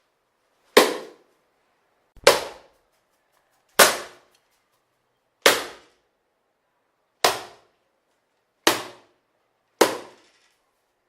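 A newspaper swatted against a wall at a mosquito: seven sharp slaps, about one every second and a half, each dying away quickly.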